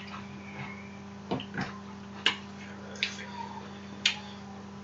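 Eating sounds from a seafood boil: a handful of short, sharp wet smacks and clicks, roughly one a second, over a steady low hum.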